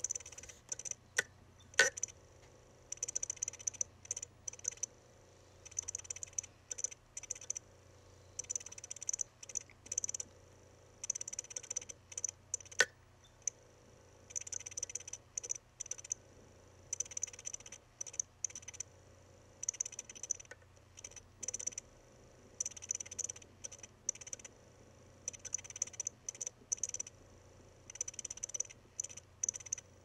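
Failing 2.5-inch hard drive from a Mac mini, its read/write head clicking in short clusters about every second and a half as it seeks back and forth for a track. A couple of sharper knocks are the head slamming against the park-position backstop. This is the sound of a dying drive.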